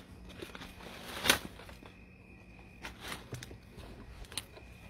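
Rustling and crackling of dry brush and twigs as someone moves through undergrowth, with scattered clicks and one louder short snap about a second in.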